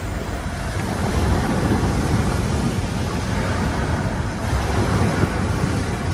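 Waves breaking on a sandy beach, with wind buffeting the microphone in a steady low rumble.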